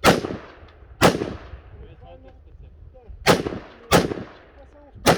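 Rifle shots on a firing range: five sharp reports at uneven intervals, each followed by a short echoing tail.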